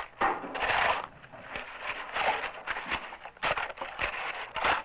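A shovel scraping and turning a wet mix of cement, sand and gravel, in irregular rasping strokes.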